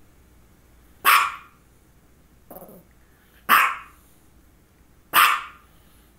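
Small dog barking: three loud, sharp single barks spaced about two seconds apart.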